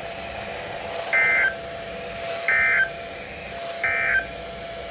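Emergency Alert System end-of-message signal: three short bursts of SAME data tones about 1.4 seconds apart, marking the end of the severe thunderstorm warning broadcast. A faint steady hum runs underneath.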